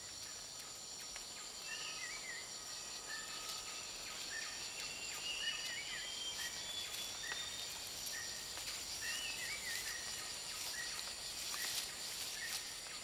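Tropical rainforest ambience: a steady high-pitched insect drone, with short chirping calls repeated about once a second. Scattered faint clicks come through, the strongest near the end.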